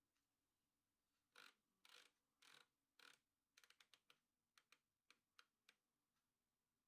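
Faint clicking of a Thermomix TM5's selector dial being turned to set the timer: a few separate clicks about half a second apart, then a quick run of clicks and several more spaced out.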